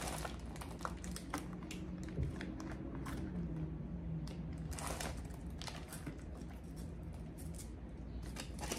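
Handling noise from nail files and small nail tools being picked up and set down on a table, with scattered light clicks, taps and soft plastic rustling.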